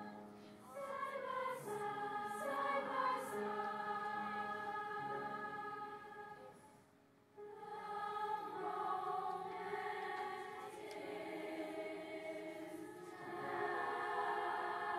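A children's choir singing, with a short break about seven seconds in before the next phrase starts.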